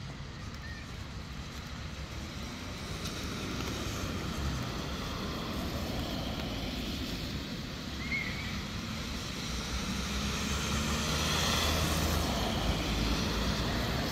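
Road traffic: cars driving past on wet asphalt, a low rumble with tyre hiss that swells as a car passes close near the end.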